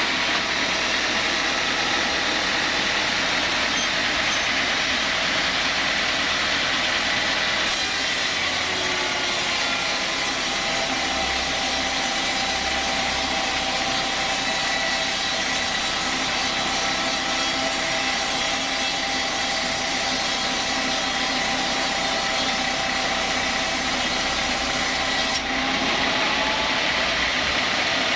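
Sawmill saw running steadily and cutting through teak. From about eight seconds in until a few seconds before the end a brighter, hissing cutting noise joins the steady running tone of the machine.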